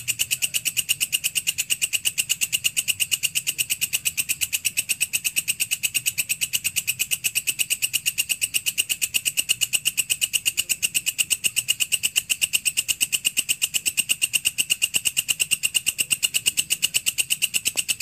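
Walang kecek (belalang kerik) insect calling: a fast, even, unbroken train of sharp, dry clicks, about seven a second.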